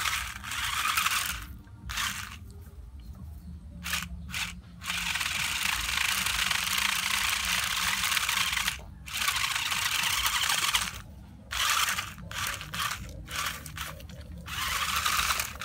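Toy RC stunt car's electric motors and plastic gearboxes whirring in spurts as it drives and spins over dry leaves and dirt, the leaves rustling under its wheels. Runs of several seconds alternate with short blips and brief pauses.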